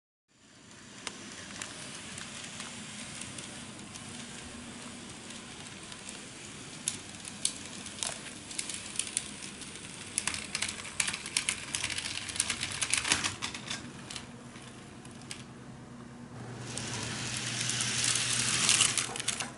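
N gauge model trains running on track: a steady rolling hiss with many scattered clicks from the wheels over rail joints and pointwork. Near the end it grows louder and a low hum comes in as a train passes close by.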